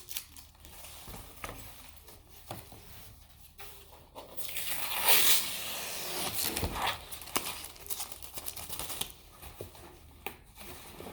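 Packaging being handled and torn open by hand: crinkling, scattered taps and clicks, and a longer tearing rip about four to six seconds in.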